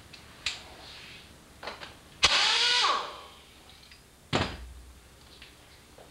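Pneumatic air tool with a T50 Torx bit running in one short burst of about 0.7 s, a hissing whir that winds down in pitch as the trigger is let go, backing out the seat's Torx-head hinge pin. A sharp knock follows about two seconds later, with a few small handling clicks before the burst.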